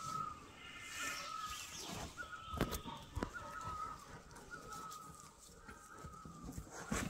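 A bird calling over and over, a short wavering note repeated about every three quarters of a second, with a few sharp knocks in between.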